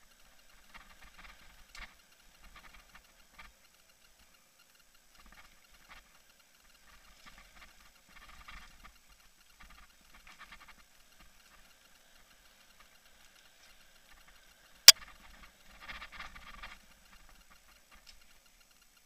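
Camera rattling in its mount in irregular bursts as a mountain bike rolls over rough dirt singletrack, with one sharp knock about 15 seconds in.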